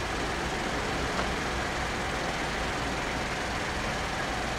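Steady low vehicle rumble with a continuous haze of noise and no distinct events.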